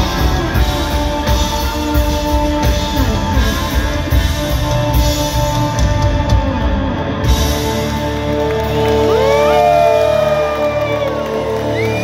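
Live rock band playing at full volume, electric guitars over drums, at the end of a song. About seven seconds in the drums stop, leaving held guitar tones that slide up and down in pitch.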